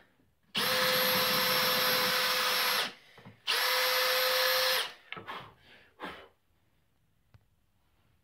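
Cordless drill boring a couple of pilot holes through a plywood plaque, in two steady runs of about two seconds and just over a second, each starting and stopping abruptly. A few light knocks follow the second run.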